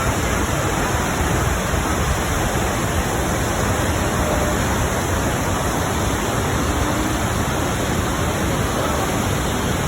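Steady, loud rush of water falling at the Krimml Waterfalls, an even noise without breaks.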